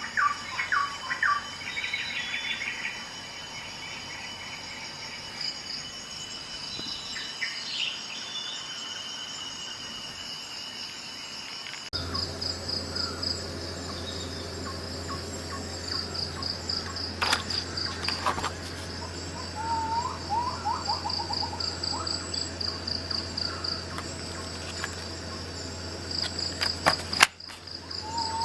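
Outdoor nature ambience: insects trill in a fast, pulsing rhythm while birds give short chirps. About halfway through the sound changes abruptly and a steady low hum joins in, with a few sharp clicks.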